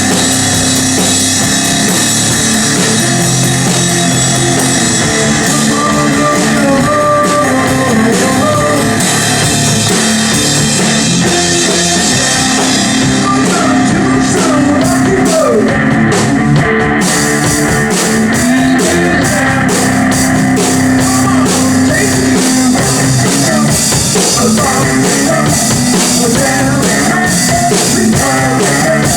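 Rock music played loud by a band, with drum kit and guitar; the cymbals drop out for a few seconds around the middle and then come back in.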